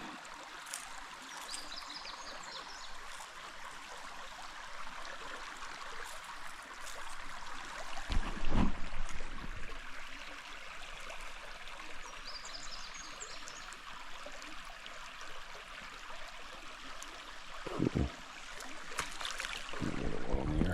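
Creek water running steadily over a shallow riffle, a constant even rush. A single louder thump comes about eight seconds in.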